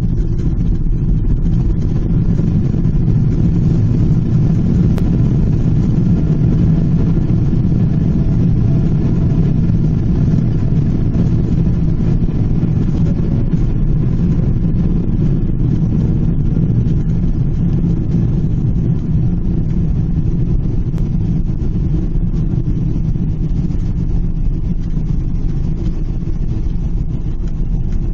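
Steady low rumble of engine and airflow noise inside the cabin of a Boeing 777-300ER airliner.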